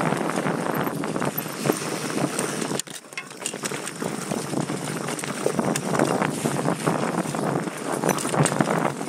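Mountain bike running fast down a dirt singletrack: tyres rolling over the trail and the bike rattling and clicking over bumps, with wind on the microphone. The noise drops away sharply for a moment about three seconds in.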